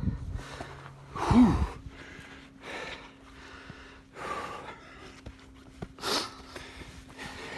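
A person breathing heavily from the exertion of hiking uphill: loud breaths in and out about every one and a half seconds, the loudest about a second and a half in with a short voiced grunt.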